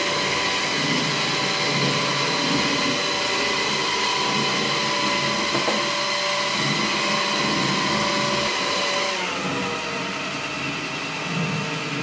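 Mamirobot robot vacuum cleaner running: a steady whine from its suction motor with whirring underneath. About nine seconds in the whine drops in pitch and the sound gets somewhat quieter, leaving a lower motor hum, as the robot is switched to a quieter setting.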